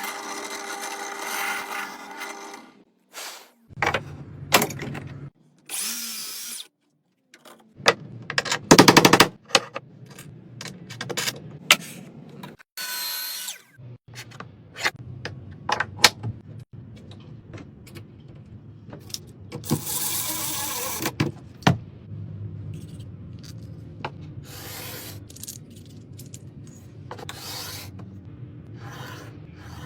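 Woodworking tool sounds in a string of short, abruptly cut clips: a power tool running in bursts, with sharp knocks and stretches of scraping and rubbing on wood.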